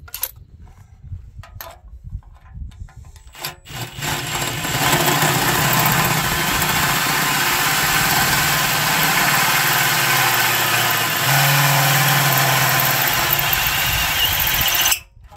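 Cordless drill driving a 1-3/8-inch bi-metal hole saw through the steel of an old cement mixer drum: a loud, steady grinding cut with the drill motor humming under load. The tone shifts about eleven seconds in, and the cut stops suddenly near the end. A few light knocks come before the drill starts.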